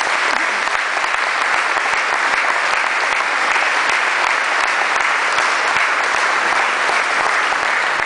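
Audience applauding steadily, dense clapping right after award recipients are announced.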